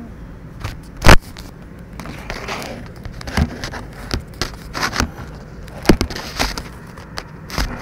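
Knocks, clicks and scraping of a camera being handled and bumped, with one sharp loud knock about a second in and smaller ones scattered after it.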